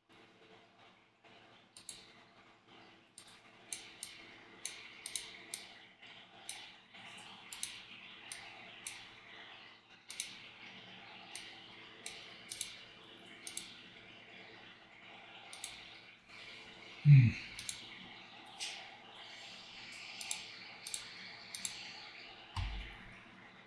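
Computer mouse and keyboard clicking at an irregular pace, a few clicks a second at times, over a faint steady background hum. About 17 seconds in there is a brief, louder burst of voice, and a low thump comes near the end.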